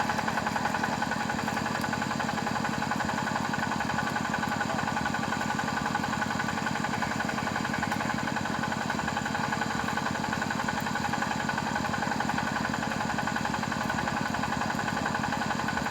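Small engine of a motorized drilling machine running steadily at constant speed, with a fast, even firing rhythm.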